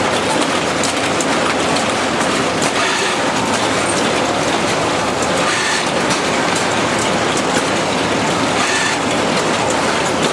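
Conveyor machinery for plant cuttings running: a steady mechanical noise with scattered light clicks from the gripper chain and belts.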